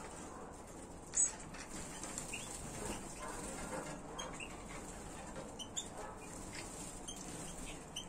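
Finches in an aviary giving scattered short, high chirps and call notes, one sharper call about a second in, with the odd flutter of wings as they move about the feeding tray.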